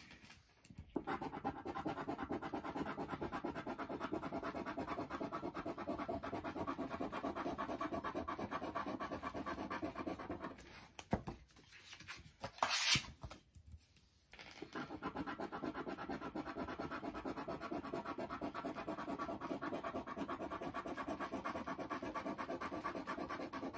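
Scratch-off lottery ticket being scratched with a small scratcher tool: fast, even back-and-forth scraping strokes rubbing off the coating. The scratching stops for a few seconds a little before halfway, with one brief louder rub in the gap, then picks up again.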